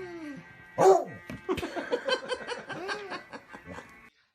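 A dog barking: one loud bark about a second in, then a quick string of shorter barks that cuts off suddenly near the end.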